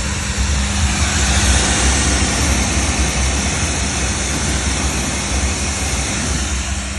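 Savi 3-in-1 pressure washer running with its diesel-fired boiler working: a steady low machine rumble with a broad hiss over it.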